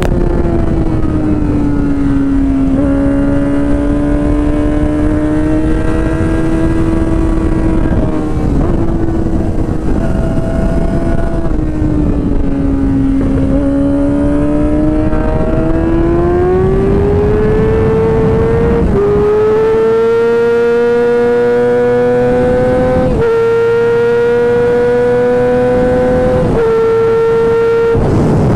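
Yamaha R6 inline-four sport-bike engine at track speed, heard from on board: the note falls as the bike slows at first, wavers through the middle, then climbs steadily through the second half with short drops in pitch as it shifts up through the gears.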